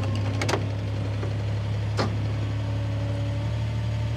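Toro Workman utility vehicle's engine idling steadily while the vehicle stands still, with two sharp clicks, one about half a second in and one about two seconds in.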